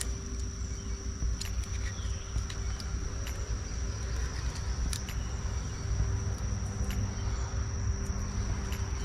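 Insects keep up a steady high-pitched drone over a constant low rumble, with scattered small sharp clicks.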